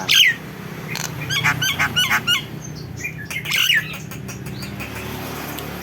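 Nias hill myna giving loud, short whistled calls in three bursts: one right at the start, a run of quick notes about a second in, and another near the middle.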